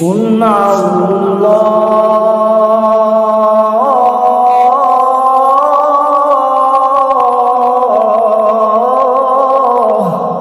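A man reciting the Quran in the melodic tilawat style, holding one long drawn-out phrase for about ten seconds. His voice steps up in pitch about four seconds in and comes back down near eight seconds.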